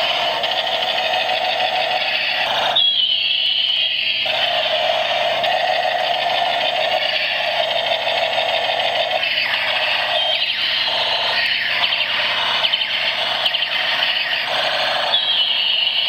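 Battery-powered toy gun's electronic sound effect: a continuous shrill electronic tone with brief pitch flicks a few times.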